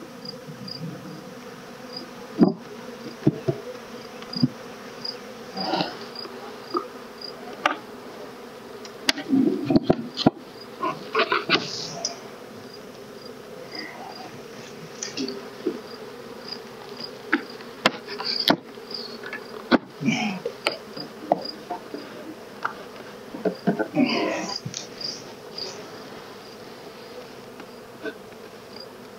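Honey bees buzzing steadily around an open hive, with intermittent knocks and scrapes from the hive's wooden parts being handled.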